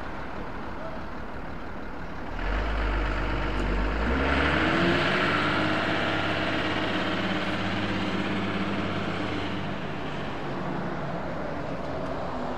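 A train passing close by. A deep rumble comes in about two and a half seconds in, then a humming drone climbs in pitch and holds under a loud rushing noise of wheels on rail, which eases near the end.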